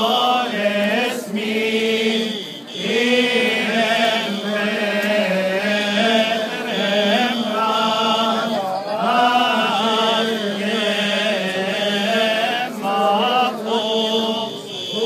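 Many voices chanting a Coptic Orthodox hymn together, a continuous winding melody with short breaths between phrases.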